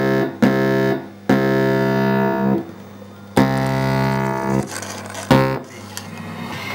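Electronic keyboard playing single held notes one at a time, about five in all, each starting sharply and stopping cleanly, over a steady low hum.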